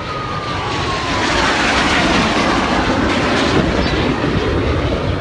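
Formation of four fighter jets passing overhead: jet engine noise swells over the first two seconds and then holds loud, with a whine that drops in pitch during the first second as they go by.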